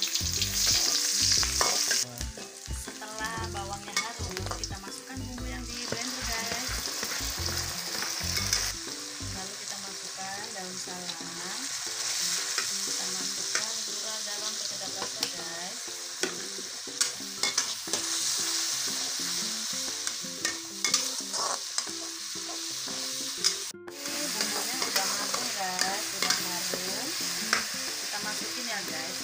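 Sliced onions and shallots, then a ground chili spice paste, sizzling in hot oil in a wok, with a metal spatula stirring and scraping against the pan.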